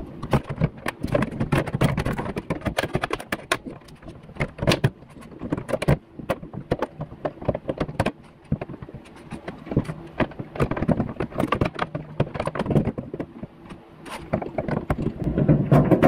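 Irregular clicks, knocks and rattles of hard plastic and sheet-metal parts as a car door latch and its handle cable are worked back into the inner door shell.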